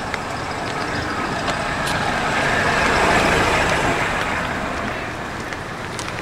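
A motor vehicle passing close by on the street. Its noise swells to a peak about three seconds in, then fades.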